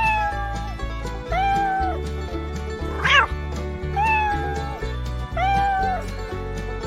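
Domestic cat meowing, about five separate meows, the loudest and shortest one about three seconds in, over background music.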